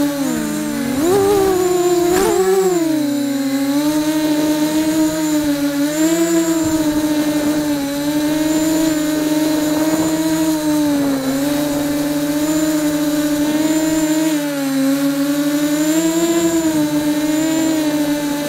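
QAV250 miniquad's brushless motors and propellers whining as heard from its onboard camera, the pitch dipping and rising with the throttle. The pitch drops sharply about half a second in, then climbs again with a short click about two seconds in. After that the whine holds fairly steady with small swells.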